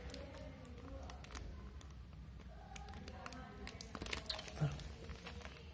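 Faint handling noise from a small clear plastic bag of glass cartridge fuses: light crinkling and scattered small clicks, with a short cluster of louder clicks about four seconds in, over a low steady hum.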